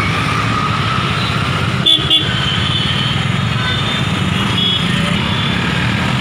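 Busy street noise around a crowd: a steady din of traffic and people, with car horns tooting. There are two brief knocks about two seconds in.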